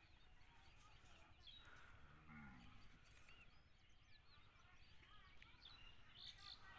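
Near silence: faint small birds chirping on and off, with one faint cow moo about two seconds in.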